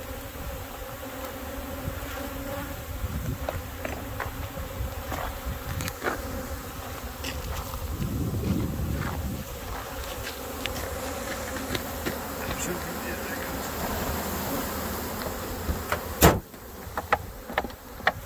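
A mass of honey bees buzzing around an open hive and a mesh package shaker box, a steady dense hum. Near the end come a few sharp knocks, the first the loudest.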